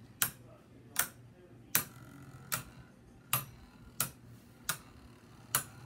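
Two plastic Beyblade spinning tops clacking against each other in a plastic stadium, a sharp click about every three-quarters of a second, eight in all.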